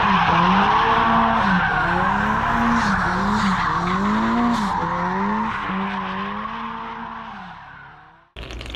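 A car driven hard, its engine note rising and falling over and over with tyres squealing; the sound fades out about eight seconds in, and a short burst of different noise cuts in just before the end.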